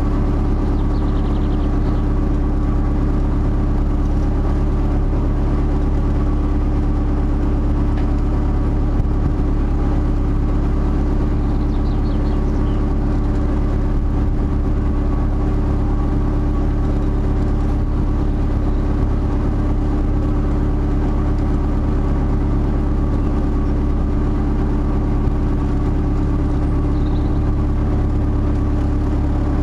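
Narrowboat's diesel engine running steadily at low cruising revs, holding an even pitch throughout.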